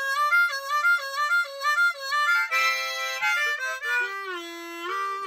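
Diatonic blues harmonica in C, played fast: a quick warbling back-and-forth between two notes, then a fuller chordal burst about two and a half seconds in, then a run of notes stepping down to a low held note that slides down and back up, and a climb back up near the end.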